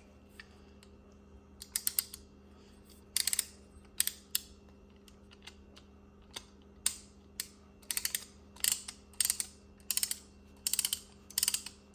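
Gallop Max ratcheting brake caliper press being worked by hand: its ratchet pawl clicks in short runs of rapid clicks, starting about a second and a half in and repeating every second or so.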